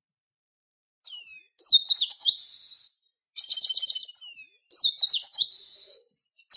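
Chestnut-capped blackbird (garibaldi) singing: about a second in, three song phrases of quick falling whistled notes over a high buzz, with short breaks between them.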